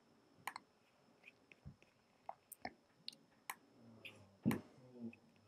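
Faint computer mouse clicks: a dozen or so short, sharp clicks at irregular intervals, the loudest about four and a half seconds in.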